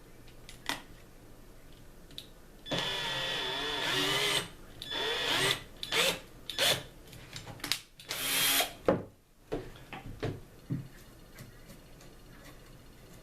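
Power drill running in a series of bursts, boring the hole for a sling stud into a rifle stock: one run of about a second and a half, then several shorter ones, with a few knocks between.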